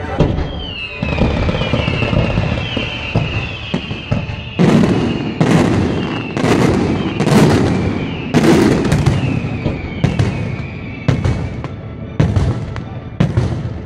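Fireworks display: a high wavering whistle that slowly falls in pitch fills the first few seconds. Then, from about four and a half seconds in, comes a rapid run of about a dozen loud bangs as aerial shells burst, with the whistle going on fainter between them.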